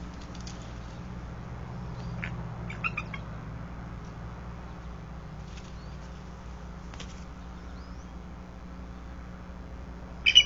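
Bald eagle settling down into its stick nest: faint twig rustles and clicks over a steady low hum, with a few short bird chirps about two to three seconds in. Just before the end, a brief, sharp, high bird call is the loudest sound.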